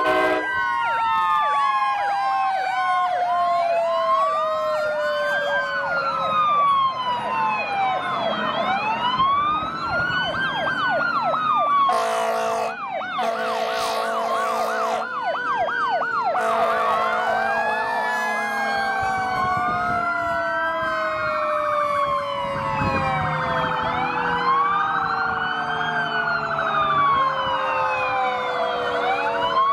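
Several fire engine sirens wailing and yelping over one another as the trucks pass, with one siren falling slowly in pitch in long glides. Air horn blasts sound about twelve to fifteen seconds in.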